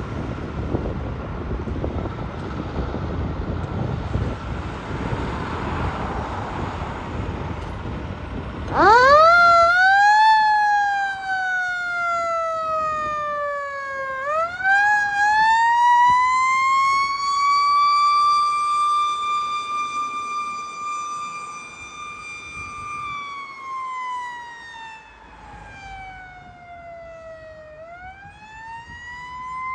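2017 KME Severe Service 100-foot aerial fire truck's diesel engine rumbling as it pulls out, with wind on the microphone. About nine seconds in, its siren starts with a sharp wind-up. The siren then wails: it falls, climbs again to a high pitch held for several seconds, falls, and starts rising once more near the end.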